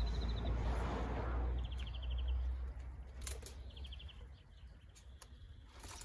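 A small bird gives a short, rapid trill three times, over a low rumble that fades after about three seconds. There is a sharp click just past the middle.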